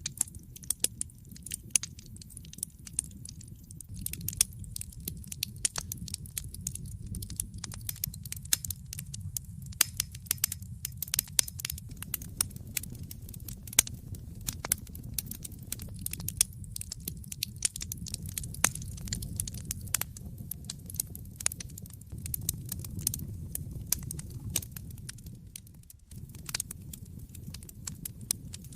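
Fire in a fireplace crackling: dense, irregular sharp pops and snaps over a steady low rumble of burning flames.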